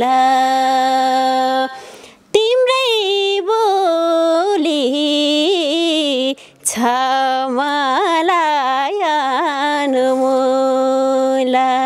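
A woman singing a Nepali folk song unaccompanied. A long held note breaks off about two seconds in, then come wavering, ornamented melodic runs with a brief break in the middle, and the phrase ends on another long held note near the end.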